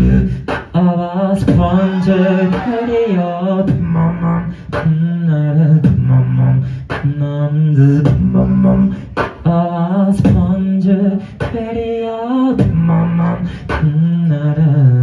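Beatboxer performing into a microphone through the club's PA: a low held bass line with a vocal melody over it, cut by sharp snare-like hits on a steady beat about once a second.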